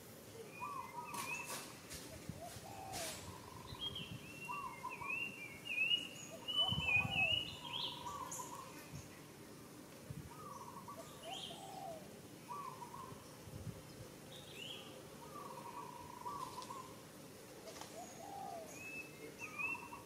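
Birds calling: a short call note repeated every second or so, with strings of higher chirps over it. A few low thuds stand out about six to seven seconds in.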